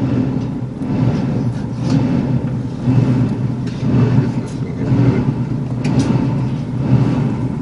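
Steady low rumbling noise with a few light clicks and taps.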